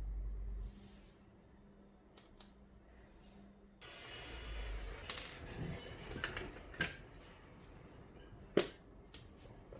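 Small electric precision screwdriver handled with sharp clicks and taps, the loudest single click near the end. A brief whir of its small motor with a high whine starts about four seconds in.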